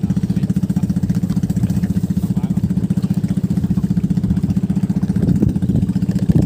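Small engine running steadily at an even speed, with fast, regular pulses. A few light knocks come near the end.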